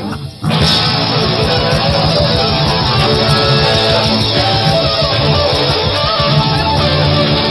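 Rock band playing live: strummed electric guitars, bass and drums, with no singing. The sound drops briefly about half a second in, then the full band comes back in.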